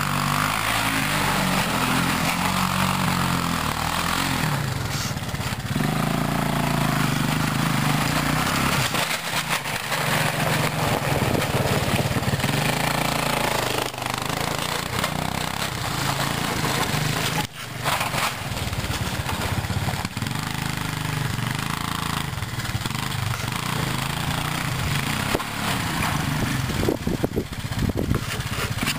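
Four-wheeler (ATV) engine running as it is ridden around on snow and ice, revving up and down with the throttle.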